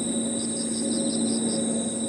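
A chorus of crickets and other insects singing: a steady high trill over a rhythm of short chirps, about four a second, with a low steady hum underneath.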